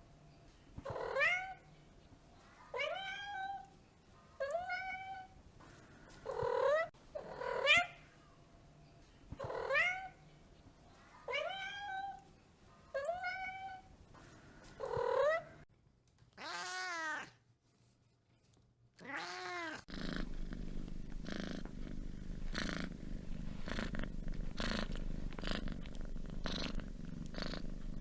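Domestic cat meowing over and over, short rising meows about every second and a half, then two longer drawn-out meows. From about twenty seconds in, a cat purring steadily.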